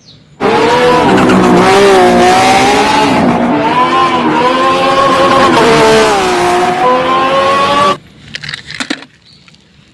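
Race car engine sound, its pitch rising and falling over a loud hiss. It starts abruptly and cuts off suddenly after about seven and a half seconds.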